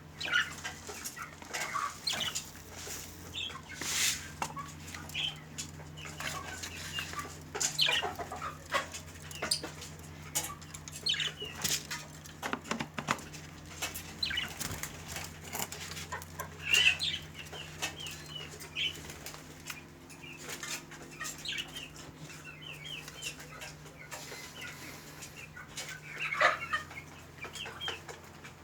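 Flock of domestic birds calling and chirping in short, frequent notes and quick runs, with wings flapping now and then.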